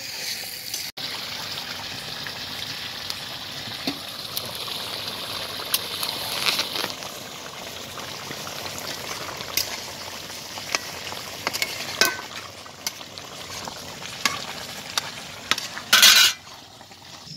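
Curry sizzling and bubbling in a metal karahi over a wood fire, a steady hiss with scattered small clinks of a spatula. Near the end there is one loud, short scrape of the spatula against the pan as it is stirred.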